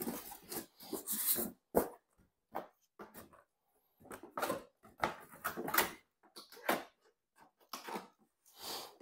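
Unpacking noises: a polystyrene packing block and cardboard box flaps scraping and squeaking as they are pulled apart, with plastic wrap rustling, in irregular short bursts.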